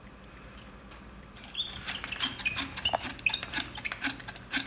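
Hand-crank flour sifter being turned, its mechanism giving quick irregular squeaks and creaks as it sifts flour, starting about a second and a half in.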